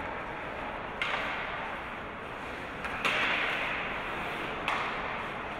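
Hockey game play on the rink: three sudden scraping swishes, about a second in, three seconds in and near five seconds in, each fading over a second or so over a steady rink background.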